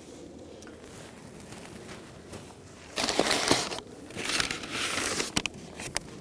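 Kraft paper sleeve and cardboard packing crinkling and rustling as a potted plant is pulled out of a shipping box. It comes in two bursts, starting about three seconds in.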